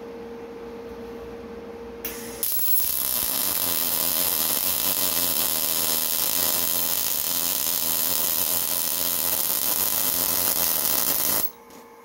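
Wire-feed (MIG) welder arc running one continuous bead on steel, starting with a short strike about two seconds in and then holding steady for about nine seconds before cutting off suddenly near the end.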